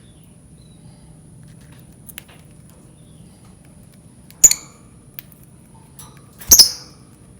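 Lovebird giving two short, shrill calls about two seconds apart, with a few faint clicks between them.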